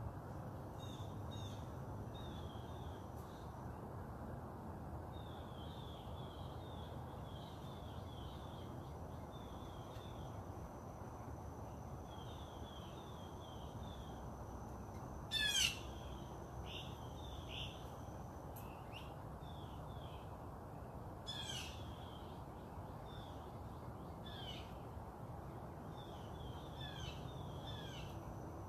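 Outdoor birdsong: wild birds twittering in quick repeated chirps, with a loud, harsh call about halfway through and another a few seconds later, over a steady low background rumble.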